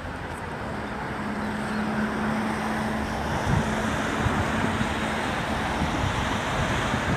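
Wind rushing over a phone's microphone along with city traffic noise, with a steady low engine-like hum for a few seconds in the middle.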